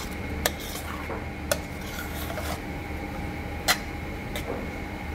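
Metal spoon stirring and scraping a thick soybean-paste seasoning in a frying pan, with a few sharp clinks of the spoon against the pan. The loudest clink comes about three and a half seconds in.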